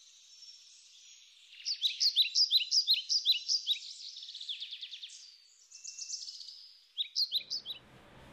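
Songbirds chirping: quick series of short, high, down-slurred notes, loudest between about one and a half and three and a half seconds in, with another brief burst near the end.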